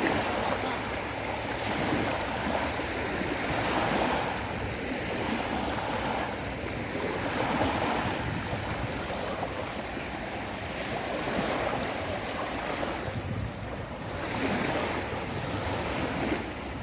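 Sea waves washing onto the shore, a steady surf that swells and eases every few seconds, with some wind on the microphone.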